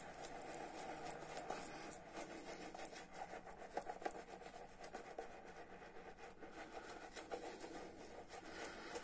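Omega black badger shaving brush swirling lather over the face: a faint, rapid rustle of many quick bristle strokes.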